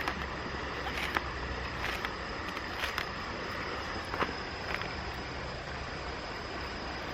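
Steady rush of a mountain stream, with a thin, steady, high insect-like tone over it and a few sharp clicks, one near the start and others about one and four seconds in.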